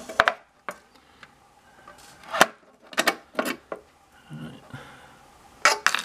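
Scattered sharp metallic clicks and taps from small metal pieces being handled at a small gun safe's round key lock, with a quick cluster of clicks near the end.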